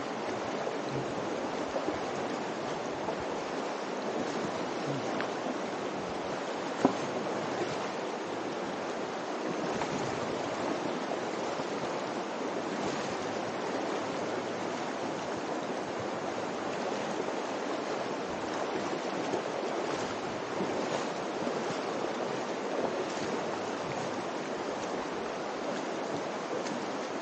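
River water rushing steadily through the Virgin River's narrow canyon, with a single sharp tap about seven seconds in.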